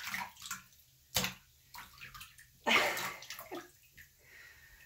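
A hand swishing and splashing through bathwater topped with a gel-like layer: a few short splashes, a sharp one just after a second in and the loudest about three seconds in.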